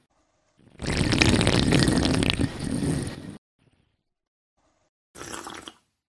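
A person sipping a drink with a long, loud slurp lasting about two and a half seconds, then a second, shorter and quieter sip near the end.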